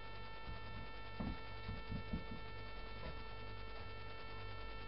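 Steady electrical mains hum with a buzz of many even overtones. A few soft low knocks come between about one and two seconds in.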